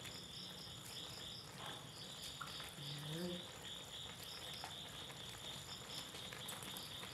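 Crickets chirping steadily at about four chirps a second, with a brief low voice murmur about three seconds in.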